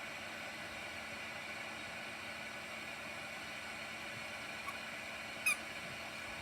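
Heat gun blowing steadily with a hiss, heating a screw head. A single short click comes about five and a half seconds in.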